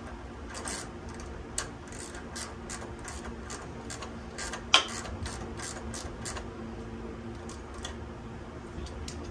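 Hand ratchet wrench clicking in a run of quick strokes, about three a second, while a bolt on the motorcycle's shift linkage is tightened, with one louder clack about halfway through.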